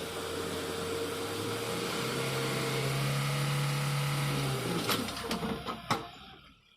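A small electric motor whirring steadily with a humming tone. Near the end a few sharp clicks sound and the whir cuts out.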